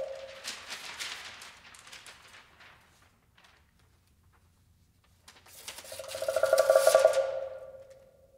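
A large woodblock is struck with a mallet at the start and rings briefly over a rustling, tearing noise. About five seconds in, a vibra bullet pressed to the woodblock sets up a rattling buzz that swells and then fades, with paper ripping above it.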